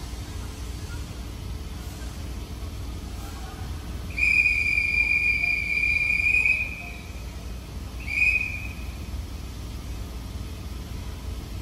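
A railway departure whistle blown at the platform: one long steady blast of about two and a half seconds, then a short blast a second and a half after it ends, over a low steady hum.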